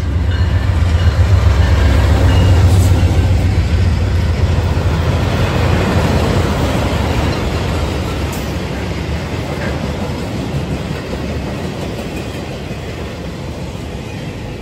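Norfolk Southern freight train passing close by: the diesel locomotives' heavy low rumble is strongest in the first few seconds, then the freight cars' wheels run by on the rails, slowly fading.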